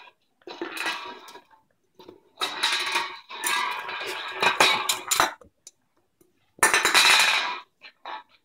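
A drink can clattering and scraping across a ceramic tile floor as a West Highland White Terrier puppy bites, pushes and rolls it, in bursts with short pauses between.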